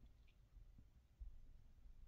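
Near silence: room tone with a few faint low thuds.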